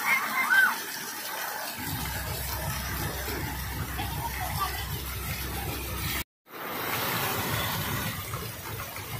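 Water pouring and splashing steadily from a water-park shower into a shallow pool. The sound cuts out sharply for a moment about six seconds in.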